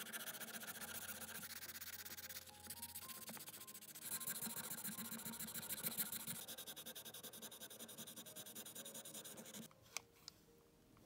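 Faint background music over a fast, rasping rubbing noise, like sanding or filing a small part, which stops about ten seconds in; two sharp clicks follow.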